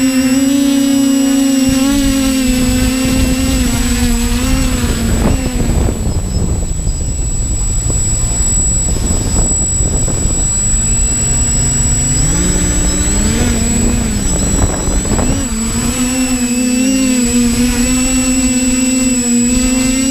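TBS quadcopter's electric motors and propellers humming, heard from the GoPro on the airframe. The pitch sags and the hum fades as it sets down on the grass about five seconds in. The motors spin back up with a rising pitch around twelve seconds, then settle into a steady hover hum.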